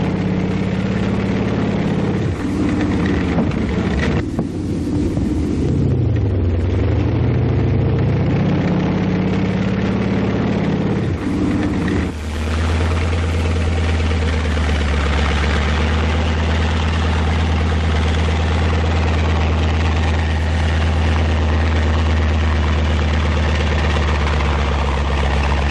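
Tank engine running under load, its pitch dropping and then rising again as it works, then settling about twelve seconds in to a steady low, even running note.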